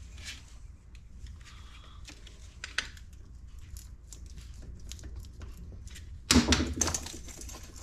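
Ratchet and hand tools clicking and clinking in short, irregular bursts on tight bolts, with a louder clattering handling noise about six seconds in.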